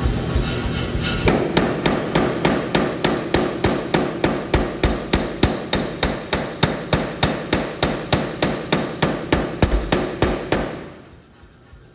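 Power hammer ram striking a glowing steel knife billet on its anvil in a steady run of blows, about four to five a second, that stops shortly before the end.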